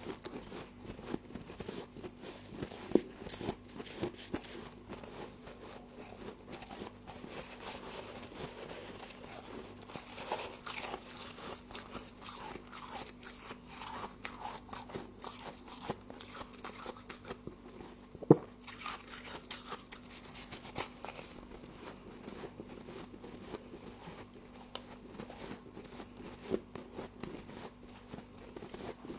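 Close-up crunching and chewing of frost: a run of crackly bites and chews, with a couple of sharper, louder cracks, over a steady low hum.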